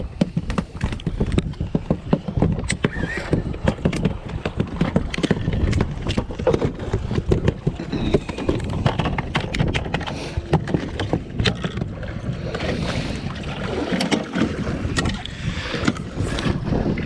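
Water slapping against the hull of a small fishing boat, with wind buffeting the microphone and irregular knocks.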